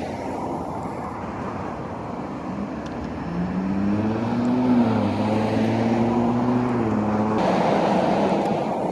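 Road traffic noise from a street. About three seconds in, a passing car's engine comes up, rising in pitch and then easing off, and it drops out a few seconds later.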